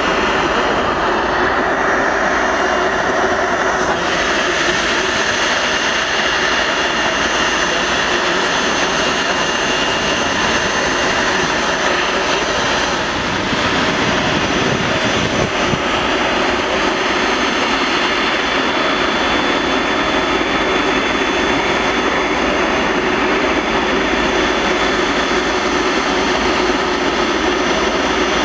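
Rolls-Royce Trent 700 jet engines of an Airbus A330-300 running at idle: a steady rushing noise with a high whine held throughout. The character shifts slightly about four seconds in.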